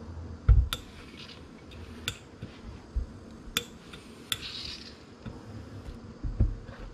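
Steam iron pressing iron-on interfacing onto fabric on a hard worktable: a run of sharp clicks and knocks as the iron is moved and lifted, two short hisses, and a heavier thump as it is set down on the table near the start and again near the end.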